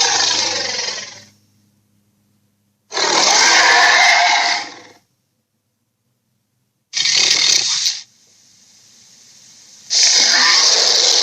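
Acrocanthosaurus sound effects: a series of harsh, rasping dinosaur roars. One dies away in the first second, another comes about three seconds in and lasts about two seconds, a short one follows about seven seconds in with a faint rising hiss after it, and a long one starts near the end.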